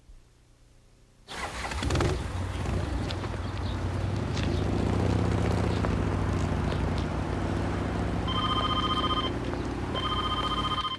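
A vehicle engine running amid outdoor traffic noise. Near the end a telephone's electronic ringer trills twice, each ring about a second long, a call coming in.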